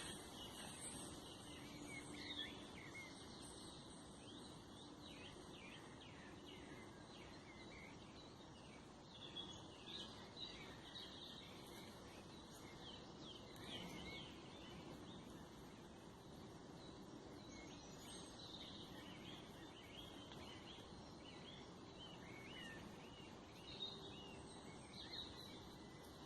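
Faint wild birdsong: scattered short chirps and calls, over a quiet steady background hiss.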